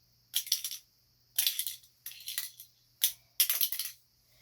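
Mini toy skateboards being handled, clattering and scraping in about five short rattling bursts.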